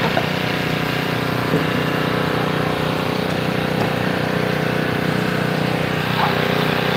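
An engine running steadily at a constant pitch, with a few faint short chirps near the end.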